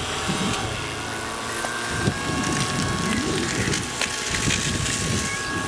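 Linde forklift's engine running while it handles a heavy truck axle on its forks; from about two seconds in it grows louder, its pitch rising and falling as it revs.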